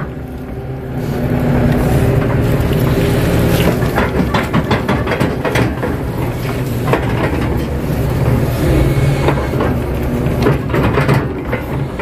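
Kato HD512E crawler excavator's diesel engine running under hydraulic load, heard from inside the cab, growing louder about a second in as the loaded arm swings. Scattered knocks and clatters through the middle as the bucket dumps its mud and is worked.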